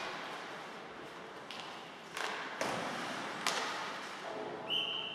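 Ice hockey play echoing in a rink: sticks and puck knocking sharply a few times, about two, two and a half and three and a half seconds in, over the hall's steady hiss. A short high steady tone sounds near the end.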